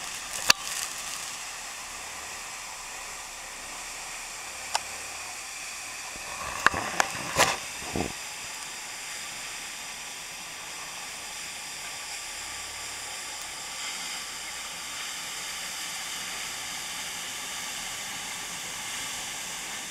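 Steady hiss of a waterfall's falling water and spray close by, with a few sharp taps about half a second in, near five seconds and between about six and eight seconds in.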